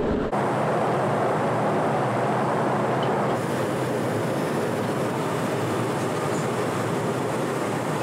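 Steady engine and airflow noise inside the cabin of a business jet with rear-mounted turbofan engines, in cruise. The noise shifts slightly in tone about a third of a second in and again about three and a half seconds in.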